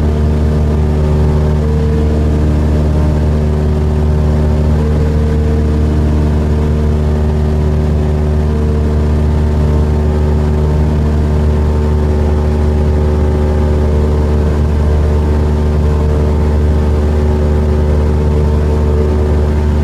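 Cessna 172R's four-cylinder Lycoming engine and propeller running steadily in flight, heard from inside the cabin as a constant low drone.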